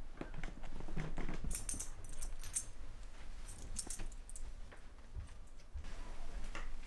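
Small metal objects jingling and clinking, twice (about a second and a half in and again near four seconds), among soft knocks and handling noise.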